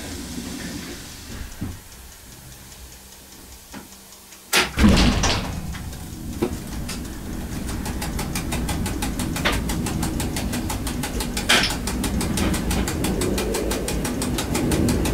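EN57 electric multiple unit pulling away from a stop, heard from the driver's cab: a loud clunk about four and a half seconds in, then a steady low rumble that slowly grows louder, with a fast, even ticking over it.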